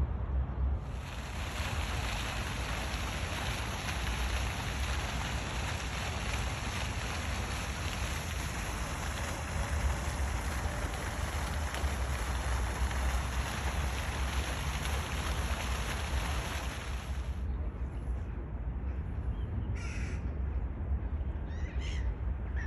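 A crow cawing twice near the end. Before that, a long, steady rushing hiss stops suddenly about three-quarters of the way through, with a low rumble underneath.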